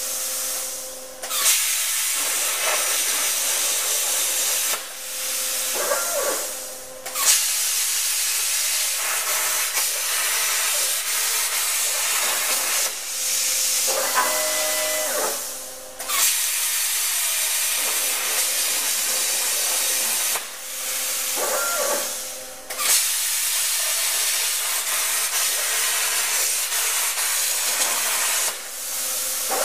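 Torchmate 2x2 CNC plasma cutter's torch cutting steel plate: the plasma arc gives a loud, steady hiss that starts abruptly at each pierce and cuts out several times between cuts. In the short pauses a wavering machine whine is heard.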